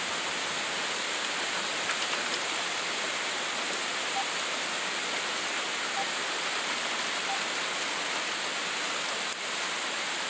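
Heavy sleet falling steadily outside an open window, a dense, even hiss like heavy rain.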